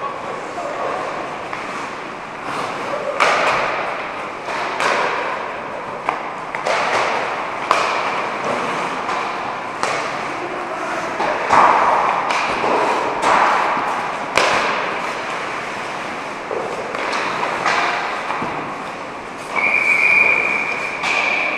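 Ice hockey play in an echoing indoor rink: repeated clacks and thuds of pucks and sticks striking, with skates scraping the ice between them. Near the end a sustained high tone lasts about two seconds.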